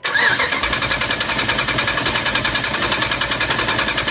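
Dodge 5.7 Hemi V8 cranking over on the starter, with a fast, even pulsing rhythm that starts suddenly. The engine has a cylinder 3 misfire that the mechanic puts down to a failed lifter and worn camshaft lobe, which leaves that intake rocker arm barely moving.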